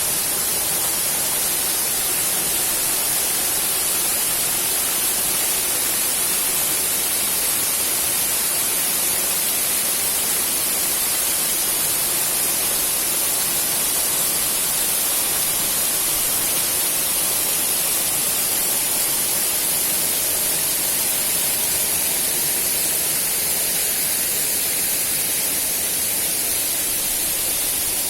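Waterfall: a steady rush of falling water, even and unbroken, with a strong high hiss.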